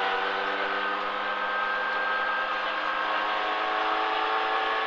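Suzuki Swift rally car's 1.3-litre four-cylinder engine running at a steady speed under light load, heard from inside the cabin, its note holding almost level and rising slightly.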